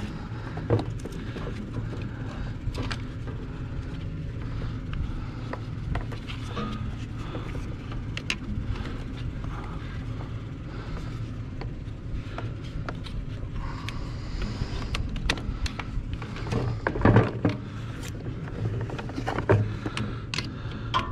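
Jump starter clamps being worked onto a mini excavator's battery terminals: scattered clicks, scrapes and rattles of metal clamps, with a cluster of louder knocks about 17 seconds in, over a steady low hum.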